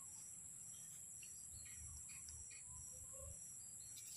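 Faint outdoor ambience: a steady high-pitched insect drone with a few short, faint bird chirps.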